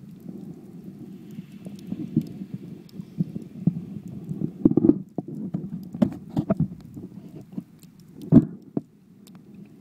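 Muffled underwater noise picked up by a phone sealed in a waterproof case: a steady low rumble with irregular knocks and thumps, the loudest about eight seconds in.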